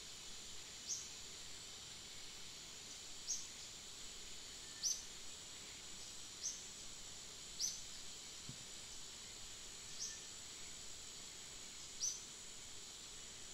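Steady, faint, high-pitched drone of forest insects, with a short, high, falling chirp repeating seven times at irregular intervals of one to two seconds.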